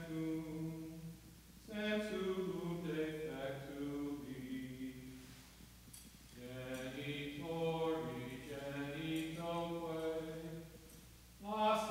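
Slow devotional singing of a hymn or chant: phrases of long, held notes separated by short pauses.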